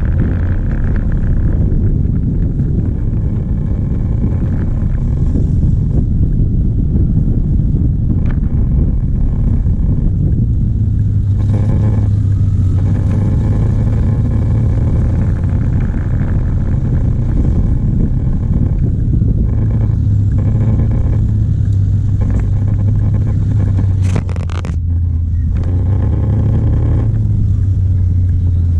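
A vehicle engine running steadily with a low, constant hum and road rumble, dipping briefly about three-quarters of the way through.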